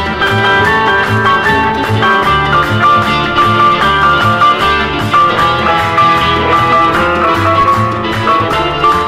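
Instrumental easy-listening dance music from a 1969 vinyl LP: a guitar carries the melody over a steady bass line, playing continuously.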